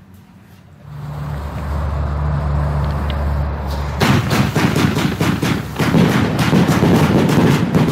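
Firework battery (cake) firing: a low steady rumble builds, then about four seconds in a rapid string of sharp bangs sets in, several a second.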